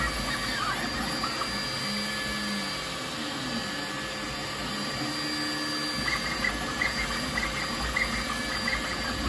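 Two Trees SK1 CoreXY 3D printer printing, its stepper motors giving short whining tones that jump in pitch as the print head zips back and forth, the 'dolphin sounds' like 'whip, whip, whip'. From about six seconds in the tones become a quick run of short, higher chirps.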